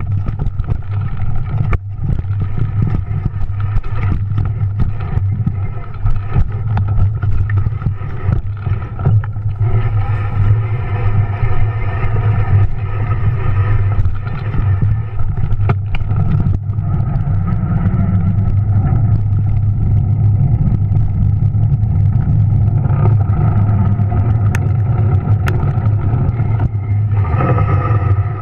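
Electric bike's rear hub motor humming under power, its steady tones carried straight into the camera through an aluminum handlebar mount with no sound isolation. Frequent short knocks and rattles come through as the bike goes over rough trail.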